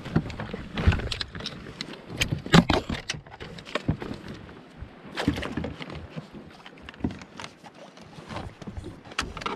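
Irregular splashes and knocks: two hooked fish splashing at the surface beside a plastic fishing kayak while the landing net and rod are handled against the hull. The loudest bursts come about a second in, around two and a half seconds in, and a little past five seconds.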